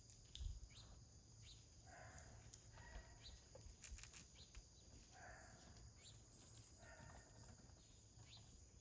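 Faint outdoor ambience: insects trill steadily, with a few short, harsh animal calls a couple of seconds apart.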